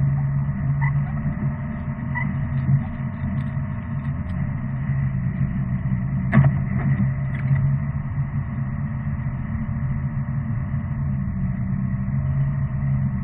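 Car driving, heard from inside the cabin: a steady low rumble of engine and road noise, with a single sharp knock about six seconds in.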